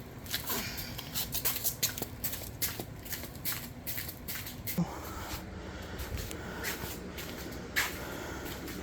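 Irregular metal knocks, clunks and scraping as a Briggs & Stratton V-twin mower engine is worked loose and lifted out of a zero-turn mower's frame, with a short strained vocal sound about five seconds in.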